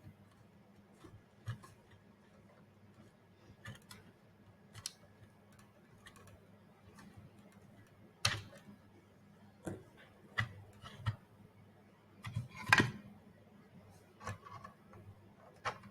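Robot head parts being handled and fitted together by hand: scattered light clicks and knocks, the loudest about eight and thirteen seconds in, over a faint steady hum.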